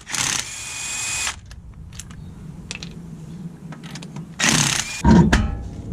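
A power tool running in two short bursts of about a second each, with a steady whine. Light metal clicks come between the bursts, and a heavy knock follows the second one.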